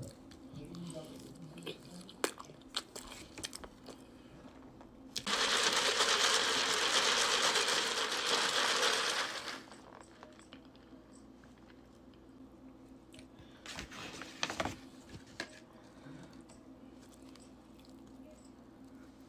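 Close-miked mukbang eating: soft mouth clicks and small rustles, with about four seconds of loud, steady rushing noise about five seconds in from sucking a drink through a straw.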